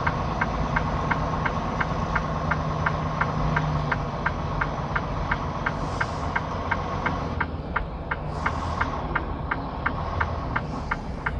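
Semi truck's diesel engine idling, heard from inside the cab, with a steady ticking about three times a second over the low rumble.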